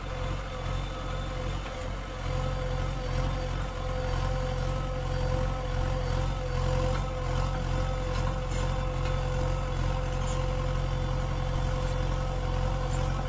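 Diesel engine of a JCB 3DX backhoe loader running steadily while the backhoe digs earth and swings a loaded bucket, with a steady whine over the engine note.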